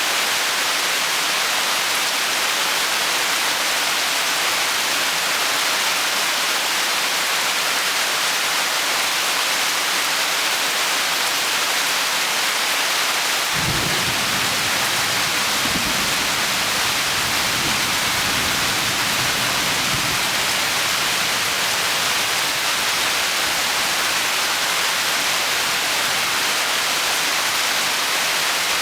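Heavy tropical rain falling steadily, an even hiss. About halfway through, a low rumble of thunder rolls underneath for roughly six seconds.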